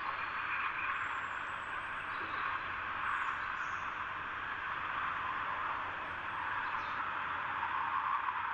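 Steady rushing wind with an even, unbroken hiss, and a few faint, thin, high bird calls now and then.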